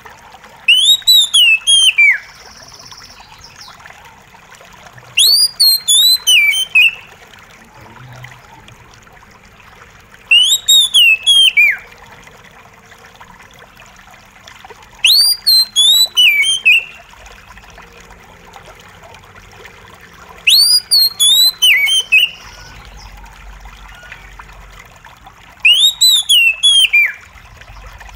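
Oriental magpie-robin song: the same short whistled phrase, a high note that slides down followed by a few quick notes, repeated six times about five seconds apart. Soft trickling water runs steadily underneath.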